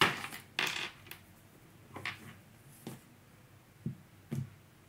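Tarot cards being handled: a few brushing, rustling sounds as the deck is squared and cut, then two short knocks near the end as the card piles are set down on the table.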